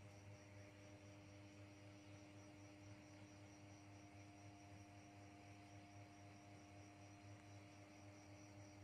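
Near silence: a faint, steady low hum with no other sound.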